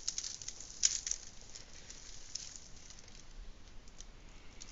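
Faint, irregular crackling and ticking of a plastic-covered diamond painting canvas being handled, with one louder crackle a little under a second in.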